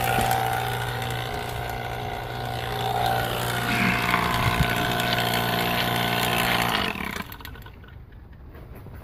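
Refrigeration vacuum pump running steadily while evacuating an air-conditioning system, then shutting off suddenly about seven seconds in, once the system has been valved off for a vacuum decay (tightness) test.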